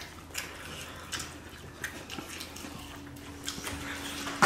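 Wet eating sounds: chewing, lip smacking and sauce-covered fingers picking at spicy chicken wings, a scatter of small clicks and smacks. A faint steady low hum comes in over the last second and a half.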